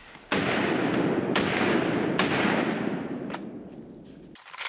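FMK Elite Pro 9mm pistol firing three shots about a second apart, each with a long rumbling echo, and a fainter sharp snap a little after three seconds.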